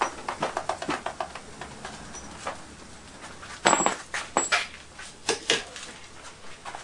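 Scattered clicks and taps of a person moving about and handling things, with one loud knock about four seconds in.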